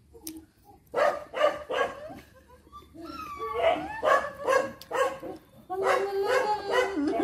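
Puppies yapping and whining during rough play, in a run of short high barks.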